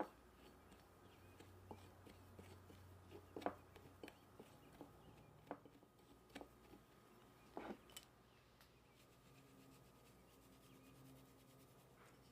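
Faint, scattered light taps and clicks of food preparation by hand, the two most distinct about three and a half and seven and a half seconds in.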